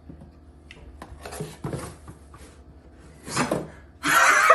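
A few short scuffing sounds, then a person bursts out laughing near the end.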